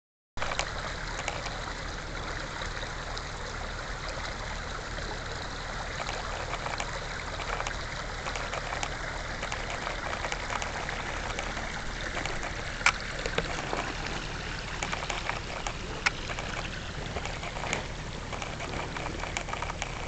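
Small brook babbling over rocks, a steady rush of running water, with a few sharp clicks in the second half.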